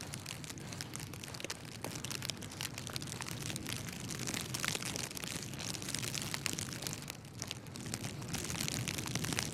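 Snowy city street ambience: a steady crackling hiss made of many fine clicks over a low rumble.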